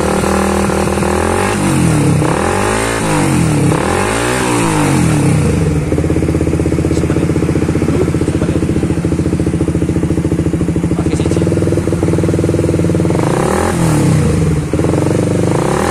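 Suzuki GSX 150's single-cylinder four-stroke engine, its head freshly ported and polished, blipped twice by hand on the throttle, idling steadily, then blipped twice more near the end.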